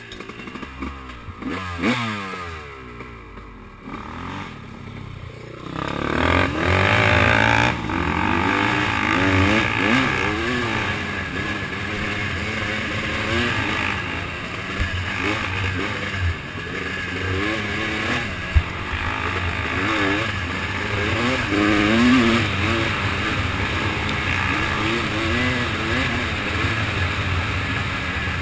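Off-road vehicle engine running through a trail ride, its pitch rising and falling in quick waves as the throttle is opened and closed. It gets louder about six seconds in and stays up.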